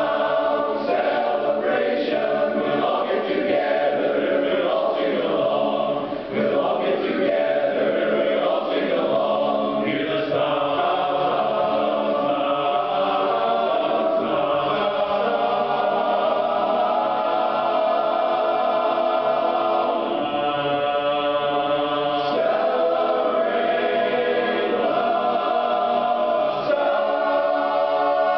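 Men's barbershop chorus singing a cappella in close harmony, moving into long held chords in the second half.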